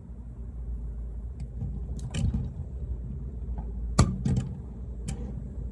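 A steady low rumble with a few short knocks and clicks, the loudest about four seconds in.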